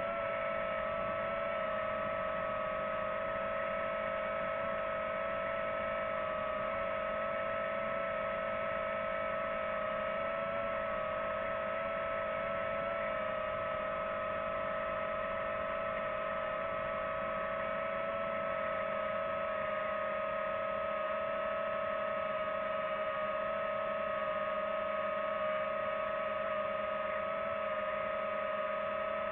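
Quadcopter drone's propellers hovering: a steady high whine that holds one pitch throughout.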